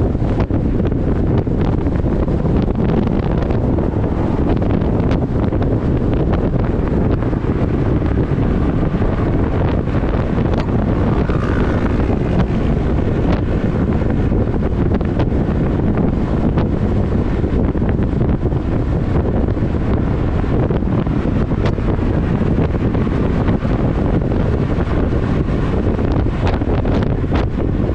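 Steady wind rushing over the microphone, mixed with the road noise of a car travelling at freeway speed.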